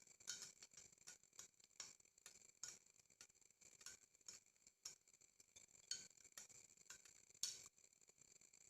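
A metal spoon stirring in a drinking glass, clinking against the glass about twice a second at an uneven pace, each clink ringing briefly.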